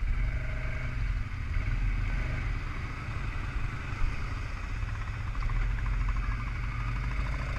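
ATV engines running close to the microphone, a steady low rumble.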